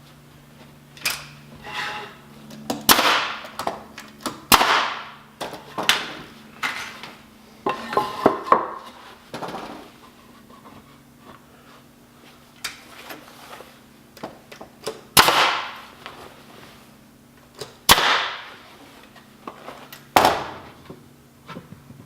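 A finish nail gun firing nails into wood: sharp shots at irregular intervals, a few seconds apart with some in quick succession, mixed with fainter knocks of boards being handled.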